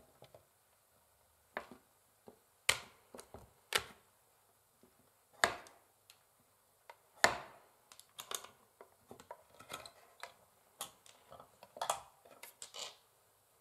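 Long fingernails tapping on a wooden chessboard: irregular sharp clicks, a few louder taps among many light ones.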